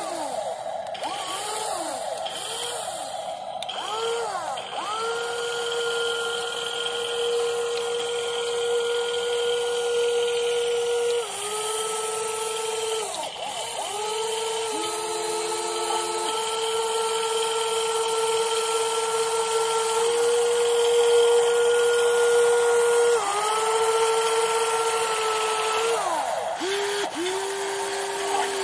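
WLtoys 16800 RC metal excavator's electric motors and gearboxes whining as it moves, in runs of a few seconds that spin up and wind down again. One run near the middle is lower in pitch than the rest.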